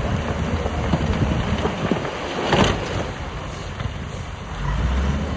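Heavy diesel earthmoving machinery running with a low rumble, with a short loud burst of noise about two and a half seconds in and the engine swelling louder near the end.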